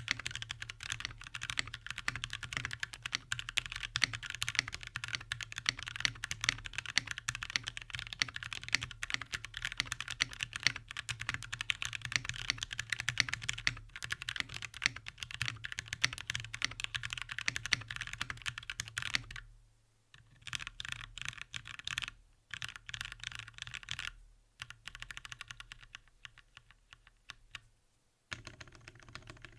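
Mechanical keyboard with Gateron CAP Brown V2 tactile switches, aluminium plate and case and PBT keycaps, typed on fast and without break: loud, relatively clacky keystrokes. After about 19 seconds the typing breaks into short bursts with pauses between them.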